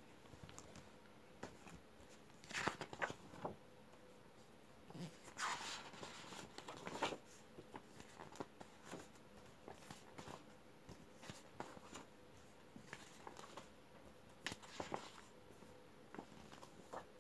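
Glossy paper brochure pages being handled and turned: soft rustles and light crackles in several bursts, the loudest a few seconds in and again around five to seven seconds in.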